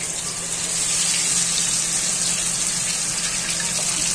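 Battered chicken pieces deep-frying in a kadhai of hot oil: a steady, loud sizzle, with a low steady hum underneath.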